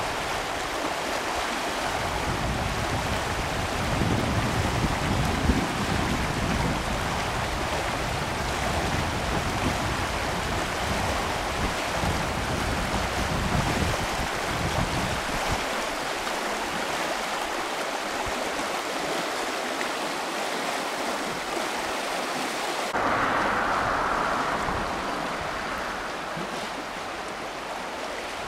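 Shallow mountain river rushing steadily over stones, with gusts of wind buffeting the microphone through the first half. About four-fifths of the way through, the rush turns suddenly louder and brighter.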